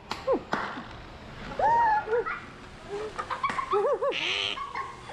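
A bird calling repeatedly in short rising-and-falling notes during its display, taken by the onlookers for a mating call. A short hiss comes about four seconds in.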